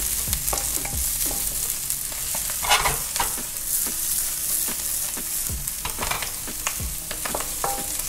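Scallions and ginger sizzling in hot oil in a nonstick wok while a wooden spatula stirs them, with scattered taps and scrapes against the pan. There is one brief louder swish of the spatula about three seconds in.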